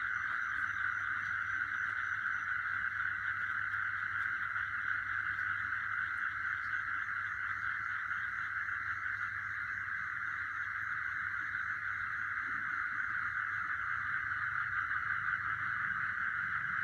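A dense, steady chorus of night insects trilling without a break, with a faint, faster pulsed chirping higher up that fades out about two seconds in.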